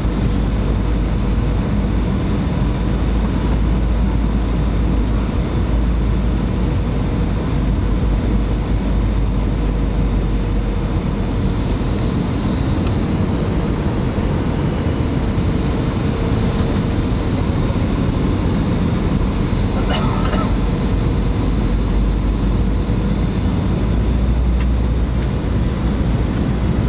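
Steady airliner cabin noise on the landing approach: a low engine and airflow rumble with a faint steady whine. A single sharp knock comes about three-quarters of the way through.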